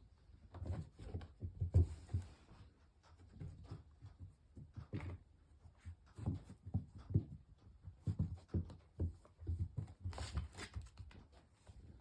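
Irregular soft thumps and scuffling, about one to three a second, of small dogs' paws scrambling on the floor.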